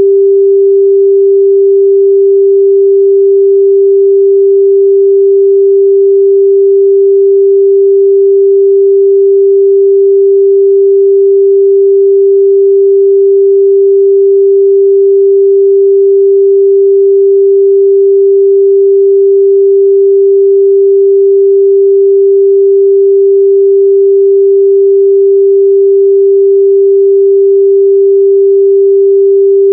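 A steady 394 Hz sine-wave test tone: a single pure mid-range pitch held at constant loudness.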